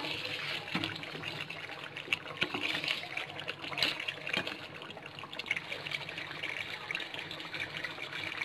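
Chicken pieces in tomato gravy sizzling and bubbling in a cooking pot, a steady crackle, with a few clatters from a wooden spoon stirring them near the start.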